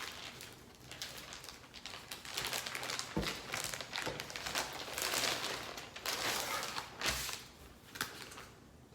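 Packaging crinkling and rustling in irregular bursts as a parcel is unwrapped to get at a book, with a soft thump about three seconds in and another about seven seconds in.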